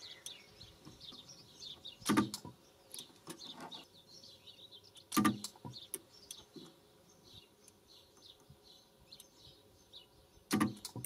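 Sunkko 737G pulse spot welder firing three welds of metal strip onto lithium cells: three sharp snaps, about two seconds in, five seconds in and near the end, each a quick double crack from the two-pulse setting. Faint bird chirps between the welds.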